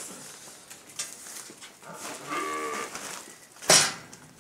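A cow moos once, a short call a little over two seconds in. About a second later there is a single loud, sharp knock, the loudest sound here.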